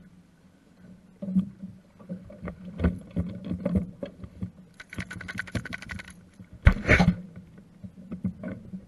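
Water splashing and hollow knocks and thumps against a small boat's hull and deck as a wet dog is pulled from the water and scrambles aboard, with the loudest thump about seven seconds in.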